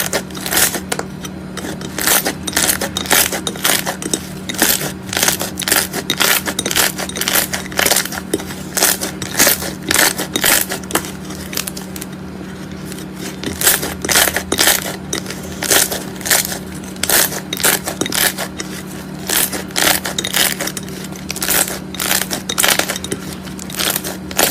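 Slime being squished and pressed by hand, giving irregular crackling pops several times a second, with a steady low hum underneath.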